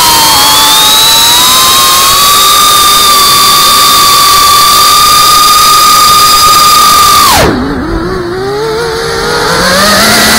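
FPV quadcopter's brushless motors whining steadily at high throttle, heard from the onboard camera. About seven seconds in the throttle is cut: the whine drops steeply in pitch and quietens as the quad tips into a dive. Near the end the pitch climbs again as power comes back.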